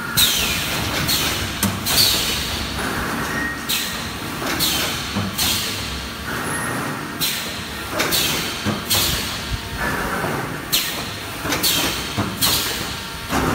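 Vertical EPS 3D panel wire mesh welding machine running, its air cylinders cycling with repeated bursts of hissing air roughly once a second over a steady mechanical din.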